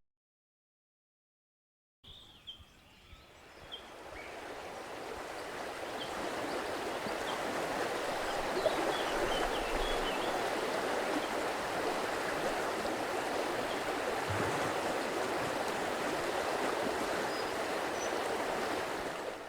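River water rushing steadily, fading in after about two seconds of silence, with a few faint bird chirps early on.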